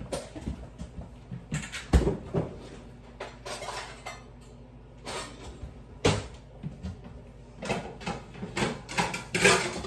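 Kitchen clatter: a string of knocks, clunks and rattles from dishes and cupboards being handled, with the sharpest knocks about two and six seconds in and a rattling burst near the end.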